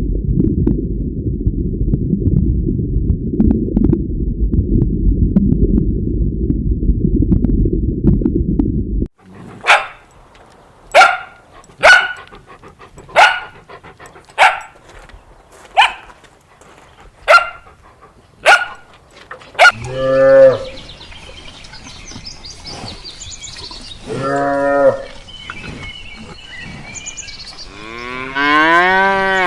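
A low, steady rumbling noise for the first nine seconds, then about eleven short, sharp barks, roughly one a second. These are followed by cattle mooing three times, each moo about a second long, the last one rising in pitch.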